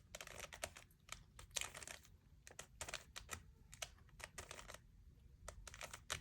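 Faint, quick, irregular clicking and clacking of a 3x3 Rubik's Cube's plastic layers being turned by hand, move after move.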